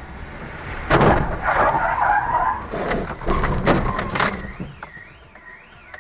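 Car crash heard from the dashcam car: a sudden heavy impact about a second in, then a rough skidding scrape and several more knocks. From about four seconds a car alarm wails up and down, about two sweeps a second.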